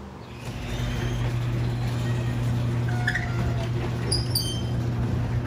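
Overhead sectional garage door rising on its electric opener: a steady motor hum that starts about half a second in, with a few short high chirps over it.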